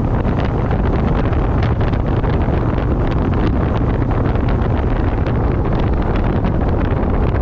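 Wind buffeting the microphone of a camera held at the window of a moving pickup, a steady loud rush with constant quick gusts over the low rumble of road and engine noise.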